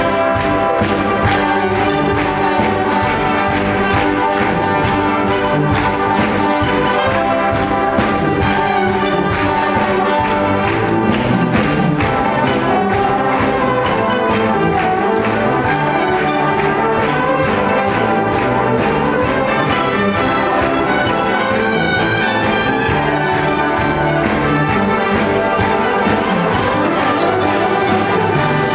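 A full brass band playing a piece together, with sustained brass chords and a steady pulse, heard live from the audience in a large hall.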